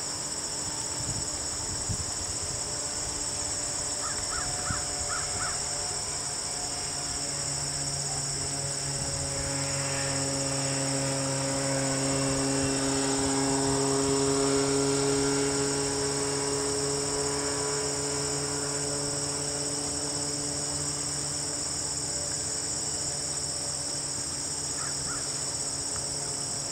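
Steady high chirring of crickets or similar insects by a river at dusk. Over it, a low engine drone swells in over several seconds, is loudest about halfway through, its pitch sliding slightly down as it passes, then fades away.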